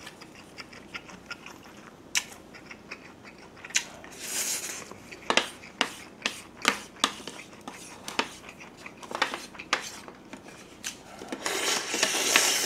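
Eating sounds: a wooden spoon scraping and clicking against a metal lunch tin, with chewing. Near the end there is a louder slurp from the spoon.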